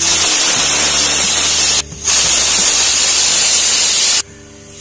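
Stovetop pressure cooker whistling: steam shrieks out under the weighted whistle on the lid in a loud, hissing blast. There are two whistles, each about two seconds long, the first cut off briefly and the second stopping suddenly near the end. Each whistle is the cooker venting at full pressure, counted to time the cooking.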